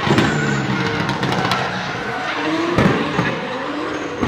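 Drift cars on track: engines at high revs, their note rising and falling, over the hiss and squeal of sliding tyres, with a sharp bang about three seconds in.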